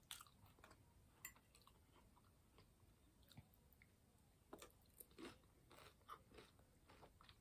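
Faint chewing and crunching of food close to the microphone: scattered soft clicks and crackles, coming more often in the second half.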